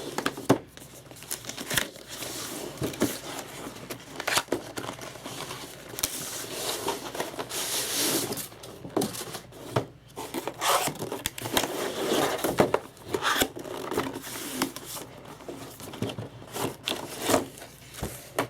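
A keyboard's retail packaging being opened by hand: plastic and paper crinkling and tearing, with scattered clicks and knocks of cardboard being handled.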